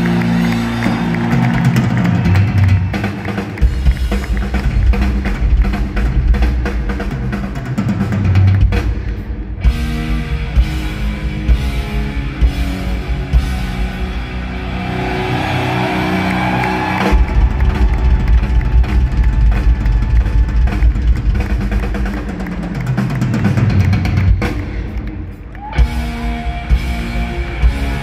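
A rock drum kit played live and loud in a drum solo. Long stretches of rapid bass-drum beats come twice, with toms and cymbals between them.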